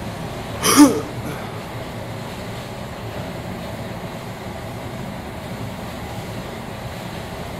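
Betts vertical turret lathe running, its large table turning, a steady mechanical drone. Less than a second in there is one brief, loud, sharp sound, the loudest thing heard.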